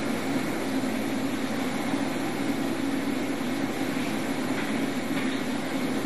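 Steady mechanical drone of a running machine, with a low hum and an even wash of noise.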